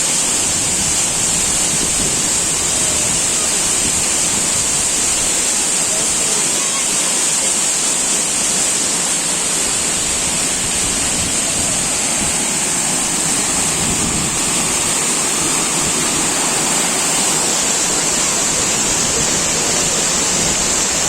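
Mençuna Waterfall's water falling and splashing in a steady, loud rush of white water.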